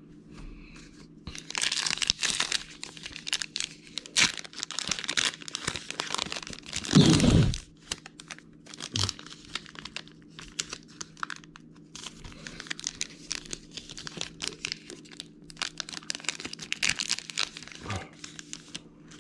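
Baseball card packs being torn open and their wrappers crinkled: a run of quick crackling tears and rustles, with a brief low bump about seven seconds in.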